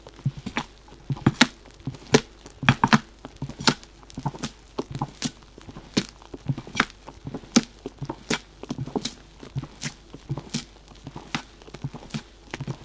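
Rubber spatula folding thick meringue-based sponge cake batter in a glass bowl. The strokes come one or two a second: soft wet thuds of the batter, with sharp clicks as the spatula meets the bowl.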